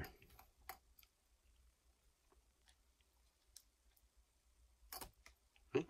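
Near silence broken by a few faint, sparse clicks: the plastic test tubes tapping against each other as a small polystyrene test tube is slid down into a larger test tube standing in a plastic beaker.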